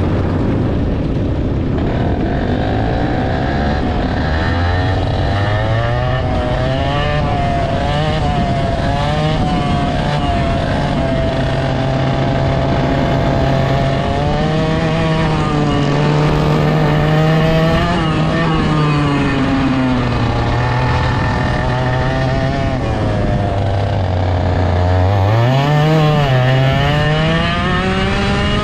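Direct-drive dirt kart engine heard from on board at full throttle around a dirt track, its revs tied to road speed. The revs climb from a slow pace at the start, rise and fall through the bends, dip a few seconds before the end, then climb sharply.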